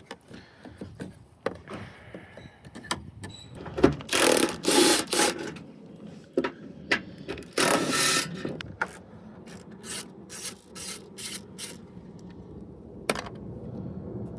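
Hand tools and parts being handled during work on a van's front end. There are scattered clicks and knocks, two longer rattling, scraping bursts about four and eight seconds in, then a quick run of sharp clicks.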